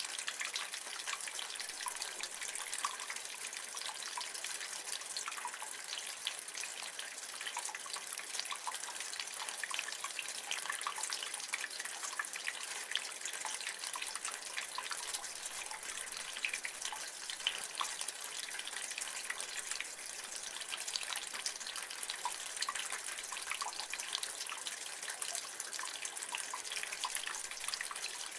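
Rainwater running off a gutter: a steady splashing trickle with many small drips landing.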